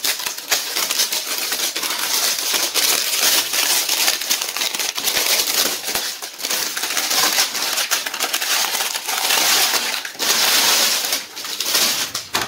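Clear plastic film crinkling and rustling as it is peeled and pulled off a rotating spice rack, with a short lull about ten seconds in.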